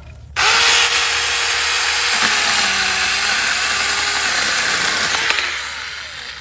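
SeeSii 6-inch battery mini chainsaw starting up about half a second in and cutting through a thick tree branch, the chain's loud hiss over a motor whine that dips in pitch as it loads in the wood. It runs about five seconds and dies away near the end.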